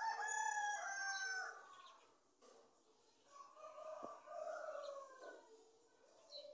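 Rooster crowing: one loud, drawn-out crow of about two seconds at the start, then a second, quieter crow about three seconds in.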